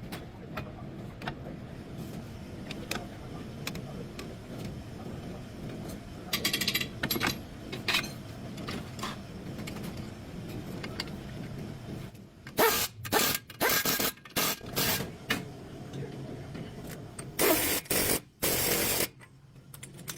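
Mechanical work noise: scattered clicks and knocks over a steady hum, with several short, loud, hissing bursts in the second half.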